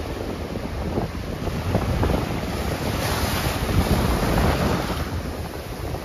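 Small sea waves breaking and washing up a sandy shore, the wash swelling louder about halfway through, with strong wind buffeting the microphone.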